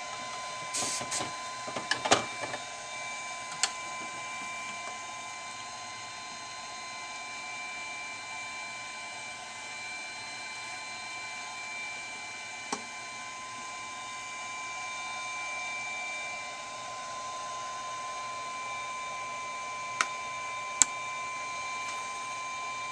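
Sharp clicks of flush cutters snipping wire ends on a circuit board: a cluster in the first couple of seconds, a few single snips, then two close together near the end. Under them runs a steady faint whine and hiss.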